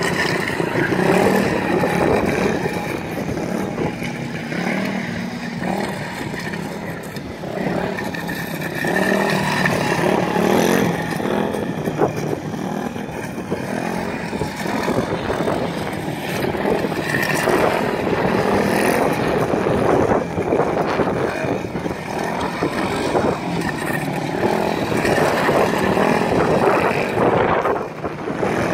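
Speedway motorcycle's single-cylinder engine running and revving as it is ridden round the track, its note and loudness rising and falling every few seconds with the throttle.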